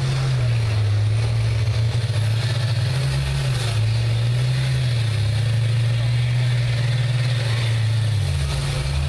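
School bus engines running hard in a demolition derby, a loud low drone whose pitch rises and falls as the buses push against each other and drive through the mud, with a brief drop in pitch near the end.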